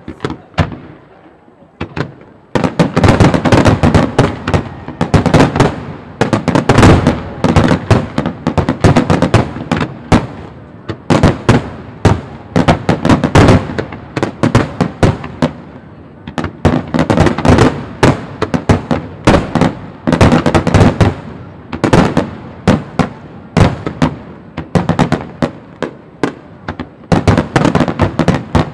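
Starmine fireworks barrage: rapid volleys of aerial shell bursts and sharp bangs, a few scattered reports at first, then a dense, loud stream from a couple of seconds in that comes in waves with brief lulls.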